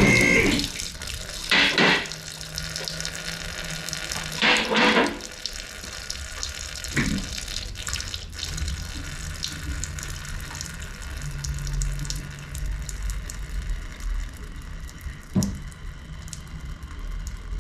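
Engine coolant draining from the radiator drain into a pan, a steady run of liquid with two brief louder gushes in the first five seconds. The radiator cap is still closed while it drains.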